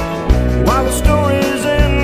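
Country-style music with a steady beat and a bending melody line.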